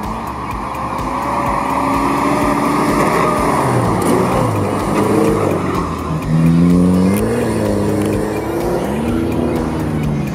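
Off-road SUV engines revving under load, pitch rising and falling as they climb a muddy slope, over background music with a steady beat.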